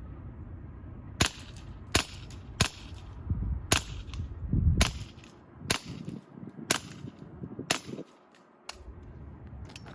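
Hatsan Sortie .22 semi-automatic PCP air pistol firing a string of about nine shots, roughly one a second, as a magazine is emptied; each shot is a sharp crack.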